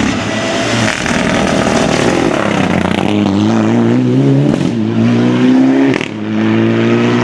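Mitsubishi Lancer Evolution rally car's turbocharged four-cylinder engine accelerating hard as it passes and pulls away. The revs rise through a gear, drop briefly at a gear change about six seconds in, then climb again.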